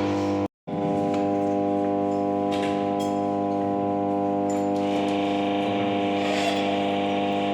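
Background music of steady held chords, cutting out completely for a moment about half a second in.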